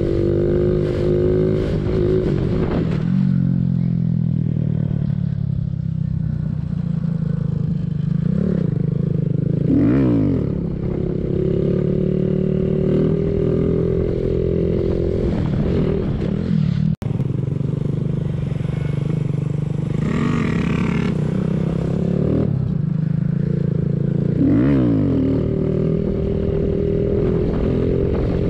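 Small single-cylinder mini bike engine running steadily under way, its pitch dipping and climbing again several times as the throttle is rolled off and back on. The sound drops out for an instant about halfway through.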